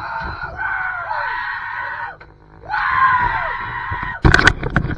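Excited men's yelling as a big king salmon is landed: two long, drawn-out screams, then a few sharp knocks near the end.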